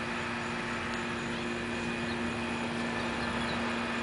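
Steady mechanical hum, a low droning tone with a fainter higher whine, from a motor running continuously.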